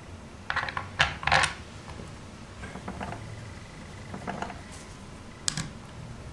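Small hard clicks and light clatter of screws and small parts being handled and set into the shell of a Tippmann TiPX paintball pistol during reassembly: a cluster of sharp clicks in the first second and a half, then a few fainter single clicks.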